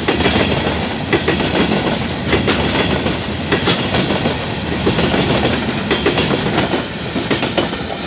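Freight train wagons rolling past close by, their wheels clattering on the rails with irregular sharp clicks over a steady rumble.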